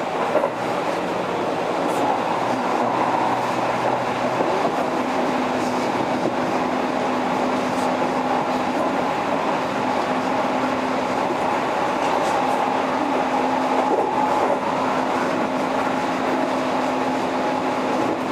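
Keihan 3000 series electric train running steadily, heard from inside the car: an even rumble of wheels on rail with a steady hum and a few faint clicks.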